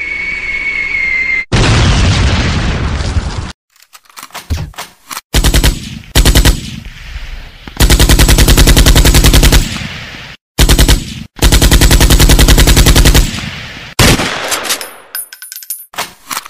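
A falling whistle ends in a loud blast about a second and a half in. Then come several bursts of rapid automatic gunfire, each lasting one to two seconds, with short pauses between them.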